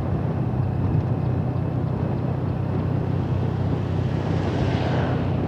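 Scooter engine running steadily at cruising speed, with road and wind noise; a brighter hiss swells briefly about four to five seconds in.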